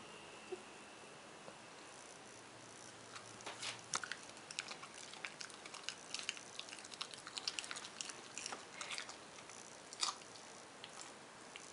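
West Highland white terrier crunching on grilled chicken gristle: a quiet start, then from about three seconds in a run of irregular sharp crunches, with a last loud one about ten seconds in.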